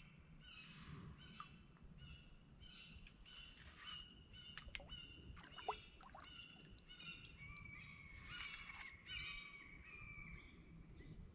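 Faint songbird calls and chirps from several birds, short high notes and a few quick falling whistles, scattered throughout.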